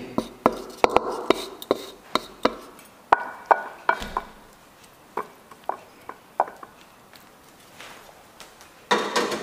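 Wooden spatula knocking and scraping against a wok and a ceramic plate as a stir-fry is pushed out onto the plate: a quick run of sharp taps, then sparser taps that die away.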